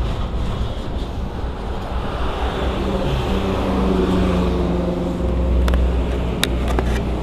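Road traffic with a motor vehicle's engine running close by. A steady engine drone builds from about two and a half seconds in and gets louder, with a few sharp clicks near the end.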